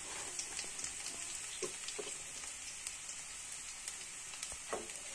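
Cumin seeds, green chillies and grated ginger frying in hot oil in a kadhai: a steady sizzling hiss with scattered small crackles.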